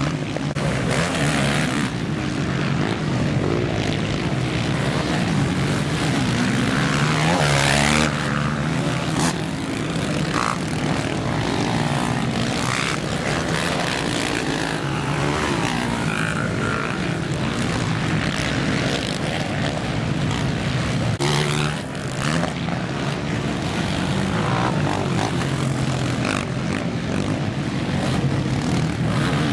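Engines of several off-road racing vehicles on a motocross track, running together in a continuous overlapping drone whose pitch rises and falls as the riders accelerate and back off.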